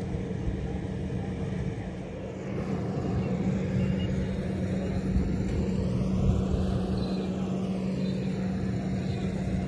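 A steady engine drone with a constant low hum under a rushing noise. Its tone sweeps up and back down between about five and nine seconds in, as a passing vehicle's does.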